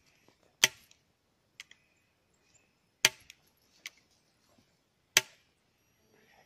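Three gunshots, roughly two seconds apart, each a sharp crack with a short tail, with a few faint clicks between them.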